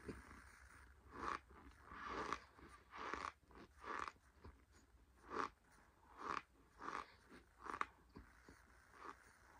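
A mouthful of scented cornstarch being chewed: short crunches, roughly one a second.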